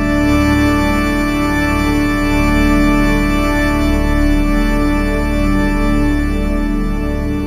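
Ambient relaxation music: a sustained, organ-like chord held steady over a deep low drone.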